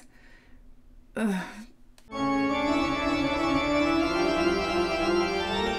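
A sustained organ-like keyboard chord, held for about three and a half seconds and cutting off sharply, used as a music sting. A brief voice-like sound comes about a second before it.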